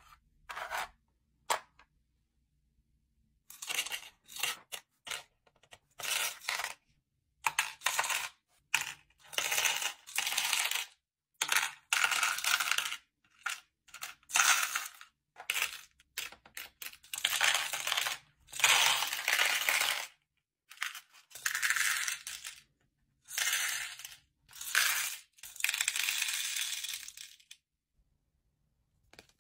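Small turtle-shaped beads clattering as they are dropped by the handful into the compartments of a clear plastic bead organizer, in a string of short bursts with brief gaps, starting a few seconds in.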